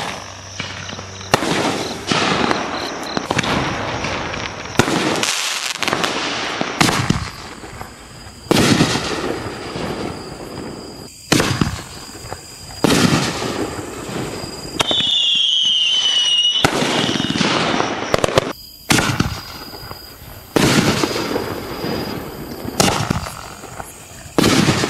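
4-inch canister firework shells going off in a steady sequence: sharp bangs roughly every two seconds, each trailing off in a fading crackle and rumble. A brief, slightly falling whistle comes about fifteen seconds in.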